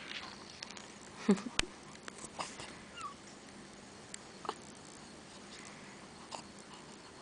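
Newborn baby making small grunts and squeaks, with a few faint clicks: the loudest is a short grunt about a second in. A hungry baby rooting for the breast.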